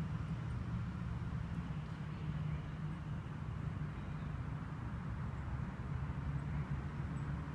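Steady low rumble of outdoor background noise, even and unbroken, with no distinct events.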